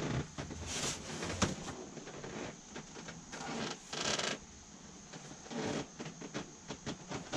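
Cardboard shipping box being handled and a rolled-up bumper pulled out of it: flaps and packing rustling and scraping, with a sharp knock about a second and a half in and a longer scraping rush near the middle.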